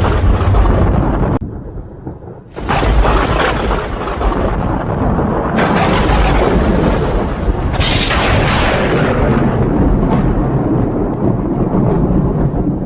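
Thunder: a deep, continuous rolling rumble. It dies down briefly about a second and a half in, then breaks out again with a sudden loud crack, with further crackling peaks around six and eight seconds.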